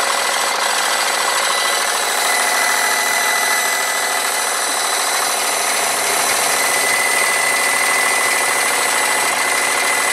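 Wilesco D32 model steam engine running steadily on live steam, a fast, even mechanical whirr. A thin high squeak from its belt-driven generator runs through it and grows stronger about halfway in; the owner thinks the generator needs taking apart.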